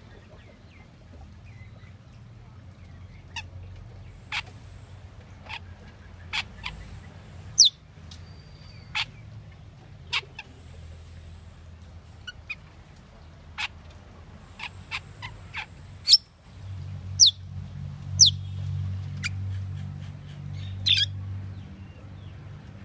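Asian glossy starling giving about twenty short, sharp call notes one at a time at irregular gaps, several of them quick high whistles sliding down in pitch. A low hum underneath grows louder about two-thirds of the way through.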